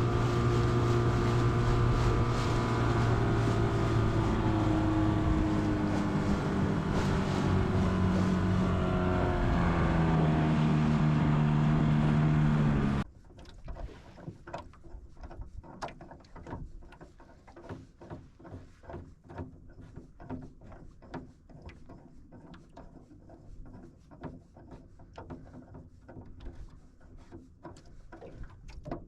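Boat motor running under way, its pitch sagging and then climbing again, cutting off abruptly about two-thirds of the way through. A much quieter stretch of scattered light knocks and taps follows.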